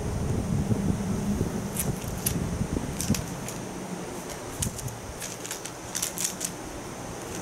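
Crinkly rustles and sharp crackles from a shiny plastic cat toy as a cat grabs, kicks and bites it. They come in clusters about two seconds in and again from about four and a half to six and a half seconds, over a steady low rumble.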